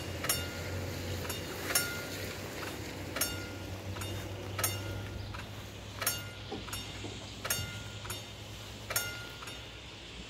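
Railroad crossing warning bells striking steadily, alternating loud and fainter strokes about every three-quarters of a second, each stroke ringing on briefly: the crossing is closing for an approaching train.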